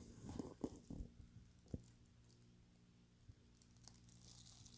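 Faint handling noises: scattered small clicks and taps, with a soft rustle near the end, over a low steady hum.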